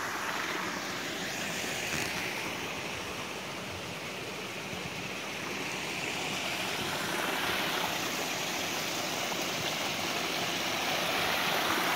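Mountain water running steadily as it collects in a pool and flows on downhill, a continuous rush that grows a little louder toward the end.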